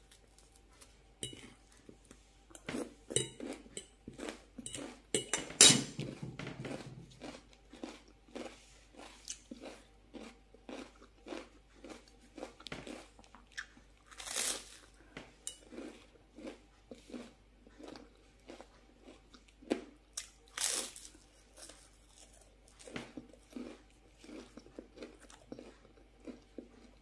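Crisp puffed rice cake topped with mashed avocado being crunched, close to the microphone: a fork presses and scrapes on the brittle cake, then bites and chewing give rapid crackly crunches, with sharp louder bites about halfway through and again about three-quarters of the way in.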